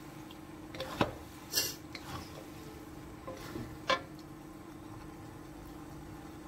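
Wooden spatulas knocking and scraping against a metal wok while noodles are tossed: a few separate clacks in the first four seconds, the last and sharpest about four seconds in. After that only a steady low hum remains.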